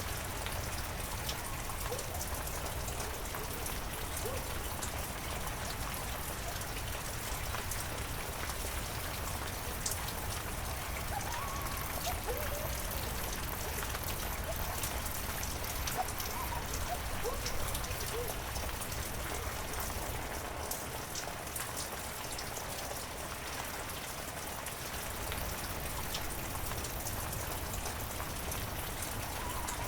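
Heavy rain falling steadily, an even hiss of rain with many sharp individual drop ticks on leaves and surfaces.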